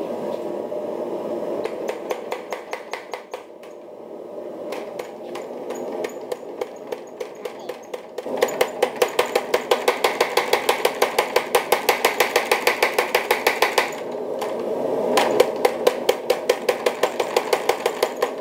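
Mechanical power hammer striking a glowing bar of bloomery steel in rapid runs of blows, about five or six a second, over the machine's steady running noise. The runs are short at first, then longer, with a long continuous stretch in the middle.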